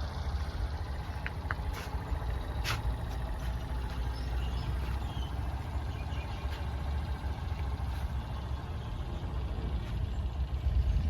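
A heavy vehicle's engine idling steadily with a low rumble, with a few short sharp clicks in the first three seconds.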